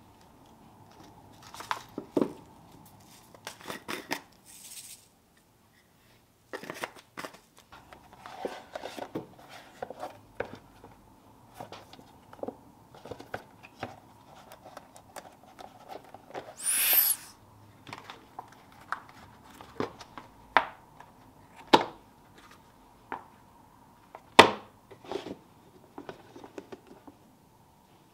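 Plastic storage canisters and silicone food-storage bags handled on a wooden counter: a scattered series of light knocks, taps and clicks as they are picked up and set down. About halfway through comes a short peeling, tearing-like sound as a silicone bag's press seal is pulled open.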